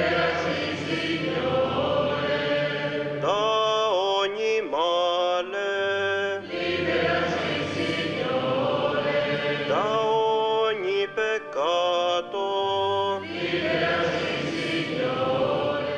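Voices singing a liturgical chant in phrases of long held notes, with a low sustained tone underneath at times.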